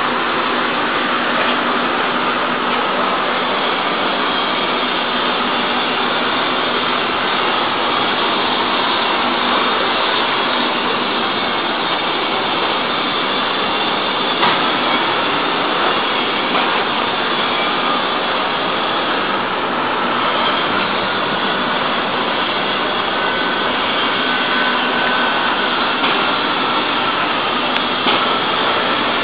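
Steady, loud machine noise, a continuous whoosh with faint whining tones in it. A few light knocks come near the end.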